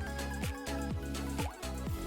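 Background music with a steady beat: a deep electronic kick drum that drops in pitch on each hit, about two a second, under sustained melodic tones.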